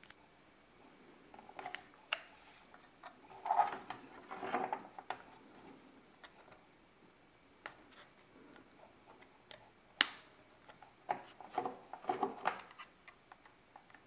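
Small plastic handling noises and clicks as a speaker-mic's 3.5 mm plug is worked into the side jack of a Yaesu FT-60 handheld radio. They come in a few short clusters, with one sharp single click about ten seconds in.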